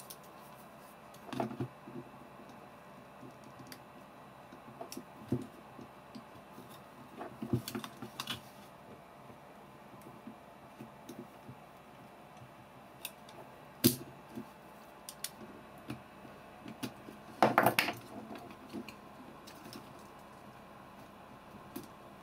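Scattered clicks and light knocks of small hand tools and metal camera parts being handled on a workbench, with one sharp knock a little past the middle and a short burst of clatter soon after.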